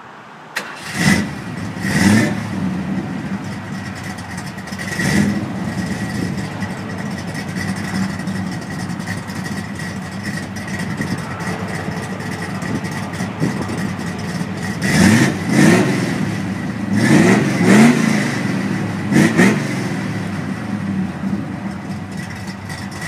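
A classic car's engine idling at its exhaust with quick throttle blips: three revs in the first five seconds, then a run of five revs between about 15 and 20 seconds in.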